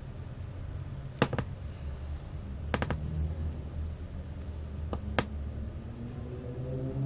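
A handful of sharp clicks over a steady low hum: two about a second in, a quick cluster of three near three seconds, and two more about five seconds in. A low drone with a rising pitch starts near the end.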